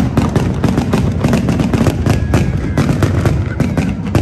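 Fireworks display in full barrage: aerial shells bursting in a dense, unbroken run of bangs and crackling, many a second.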